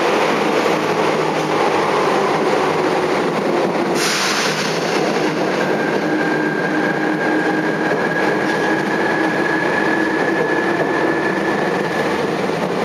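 Running noise inside a Tokyu 8590-series subway motor car in a tunnel: a steady rumble of wheels on rail and traction equipment. The hiss grows brighter about four seconds in, and a faint steady whine sets in soon after.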